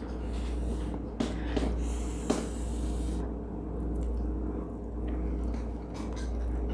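Quiet eating at a table: a fork clicks against a ceramic plate a few times in the first couple of seconds, then a breath through the nose and soft chewing of a mouthful of omelet, over a steady low hum.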